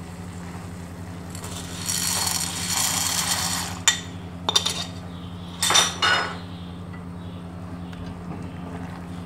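Dry macaroni poured from a plastic bag into a steel pot of boiling water: about two seconds of rustling, then a few sharp clinks of a metal spoon and utensils against the pot.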